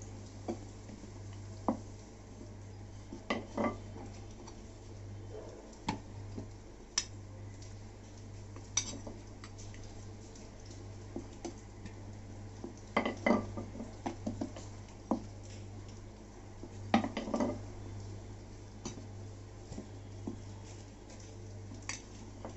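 Wooden rolling pin rolling and knocking on a round aluminium rolling board as dough is rolled out thin, with scattered light clacks and a few louder clusters about halfway and three-quarters through. A steady low hum runs underneath.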